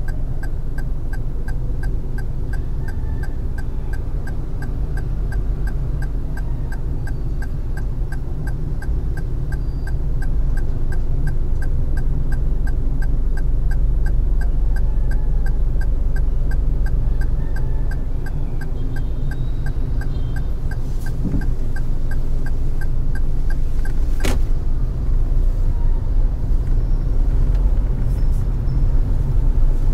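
Car driving in traffic: steady low road and engine rumble. A faint, even ticking runs through most of it, and there is a single sharp click about 24 seconds in.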